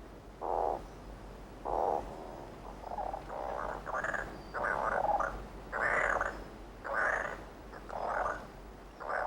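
Seychelles bare-legged scops owl calling: a series of about ten short, saw-like rasps, roughly one a second.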